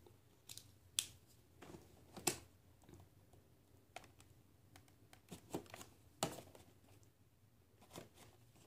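Faint, scattered clicks, taps and rustles of a cardboard and plastic action-figure box being handled and opened, with a few sharper snaps among them.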